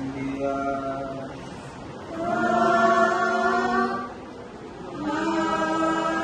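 Mixed group of students singing a madhaha, a Maldivian devotional praise song, unaccompanied, in three long held phrases; the middle phrase is the loudest.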